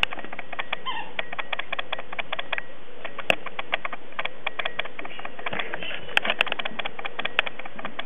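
Wetland animal chorus: a dense, steady stream of rapid clicking calls, many a second. A few sharper, louder clicks stand out about three seconds in, twice around six seconds and once near the end.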